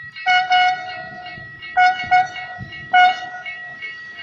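Horn of a passing ALn 663 diesel railcar sounding the driver's greeting: a string of short toots on one pitch, two quick pairs and then a longer one, over the train's low rumble.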